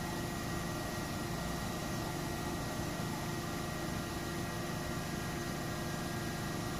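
Willemin Macodel W 408 S five-axis CNC machining centre running without cutting: a steady mechanical hum and hiss with several constant tones held throughout.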